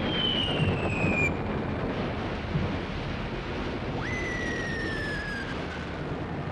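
Falling aerial bombs whistling, with two falling whistles: one at the start and one about four seconds in, each sliding slowly down in pitch. Under them runs a steady low rumble of explosions.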